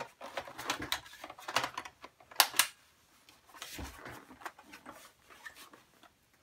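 Clicks and knocks of a laptop being handled and moved about on a desk, a sharp double click about two and a half seconds in and a dull thump near four seconds.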